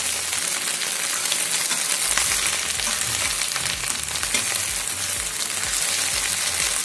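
Sliced okra and green chillies sizzling as they fry in hot oil in a steel pan, stirred with a spatula, with faint scrapes and ticks of the spatula against the pan over a steady hiss.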